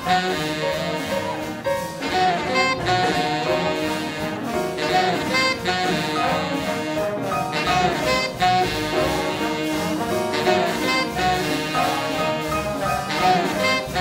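Big band swing jazz: a saxophone and brass section playing a lively tune over a rhythm section.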